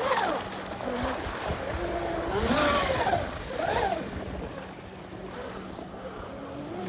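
Traxxas M41 RC catamaran's brushless electric motor whining, its pitch rising and falling as the throttle is worked, over wind and surf noise. The whine fades toward the end as the boat runs farther off.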